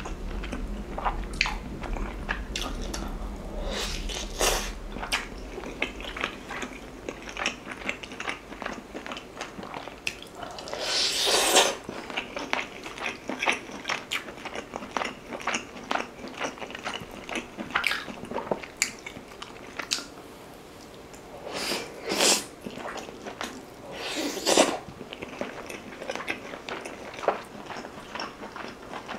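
Close-miked chewing and biting as beef is gnawed off a large boiled rib bone: many small wet mouth clicks and smacks. A few louder rushing sounds stand out about a third of the way in and twice toward the end.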